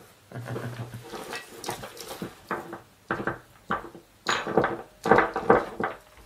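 Irregular knocks and clicks of an electric drill's metal gearbox housing being handled and fitted onto the drill body, some with a short metallic ring, as the reassembled two-speed gear mechanism is tried by hand.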